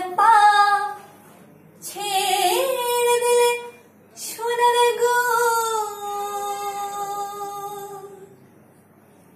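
A woman singing a Bengali song unaccompanied, in three drawn-out phrases, the last note held for about four seconds.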